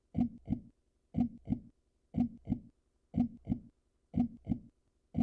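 Heartbeat sound effect playing on a loop: paired low thumps, lub-dub, repeating about once a second.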